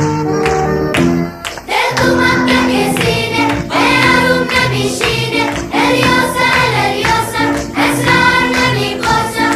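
Background music: a short instrumental passage, then singing comes in about two seconds in and carries on over the accompaniment.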